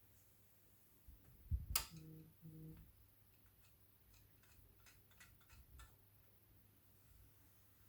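Continental Wanderer Klein portable typewriter mechanism being handled: a thump and a sharp click about two seconds in, two short low buzzes, then a run of faint light ratchet-like clicks.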